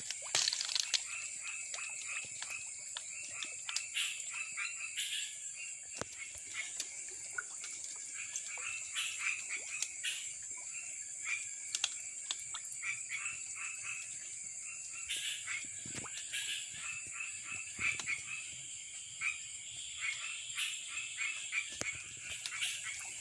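Frogs calling at night in a swamp: many short croaking notes in quick series, overlapping in a chorus, over a steady high-pitched drone.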